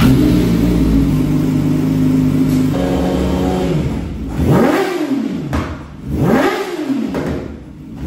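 Yamaha YZF-R6 inline-four sport bike engine on a stand, idling steadily, then revved twice in quick throttle blips that rise and fall, with a third blip starting at the very end.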